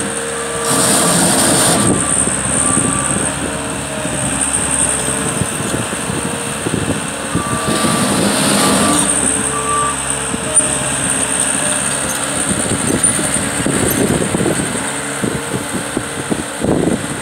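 Caterpillar 247 compact track loader running and moving over packed dirt: its diesel engine works with a steady high whine over a constant rattle. There are two louder surges of noise, about a second in and again near the middle.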